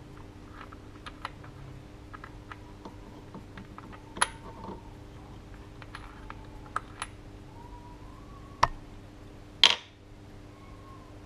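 Light metallic clicks and taps of small metal parts handled by hand at an engine's fan clutch hub, with a few sharper knocks, the loudest a short clatter near the end.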